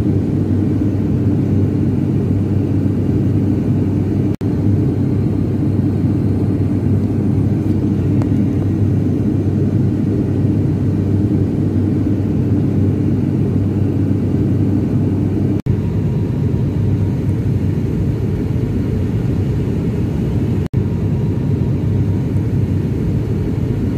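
Steady engine and propeller drone heard inside the cabin of a high-wing turboprop airliner, with a deep hum that keeps an even level. The sound cuts out briefly three times.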